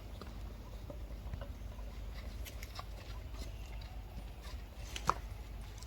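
Soft rustling and scattered small clicks over a low rumble, with one short, sharp squeak from a baby monkey about five seconds in.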